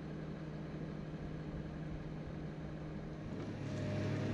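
A heavy machine's engine running steadily at a logging site, heard as a low, even hum. About three seconds in the hum changes to a slightly louder, deeper drone with a faint higher whine over it.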